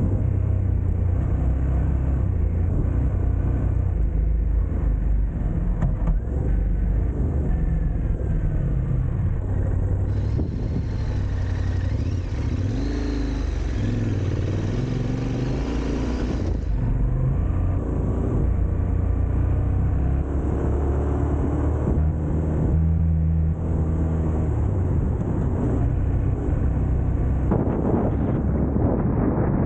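Yamaha Ténéré 700's parallel-twin engine running under way, the revs rising and falling with the throttle. A rush of hiss is added for several seconds around the middle.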